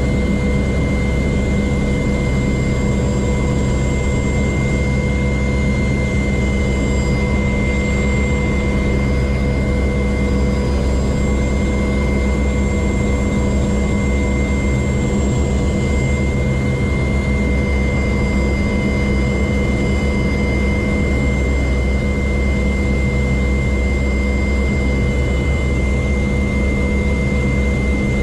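AgustaWestland Merlin helicopter heard from aboard: its three turboshaft engines give a steady high whine over a loud, even rotor and transmission drone, holding the same pitch and level throughout.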